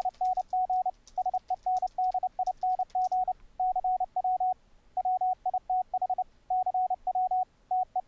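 Morse code from the CW Term keyboard program running in DOSBox: one steady tone keyed on and off in dits and dahs, sending the typed text "testing sending cw with cw term". Computer keys click during the first three seconds or so as the text is typed.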